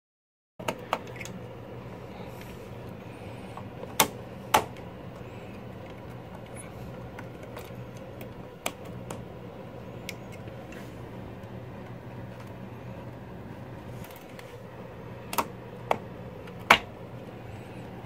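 Sharp plastic clicks and snaps as DDR4 RAM sticks are pressed into motherboard memory slots and the slot latches click shut. There are about eight clicks scattered through, the loudest near the end, over a steady low hum.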